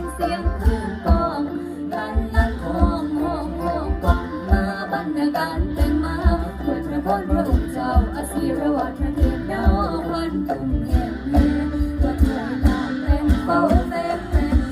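Isan pong lang folk ensemble playing, melodic lines over a steady low drum beat.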